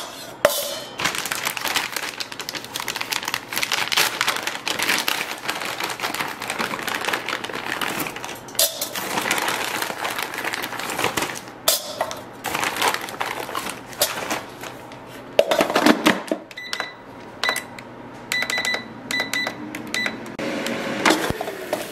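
A plastic bag crinkling and chicken nuggets clattering into an air-fryer basket. From about two-thirds of the way in, the Copper Chef air fryer's control panel gives a run of short beeps as it is set.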